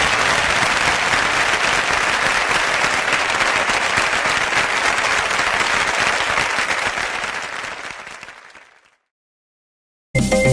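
Audience applause at the close of a live song recording, fading out about eight seconds in. After a moment of silence, the next track's music starts right at the end.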